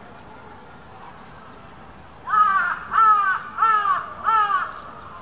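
A bird calls four times in quick, even succession, starting about two seconds in; each call is loud and pitched, rising then falling.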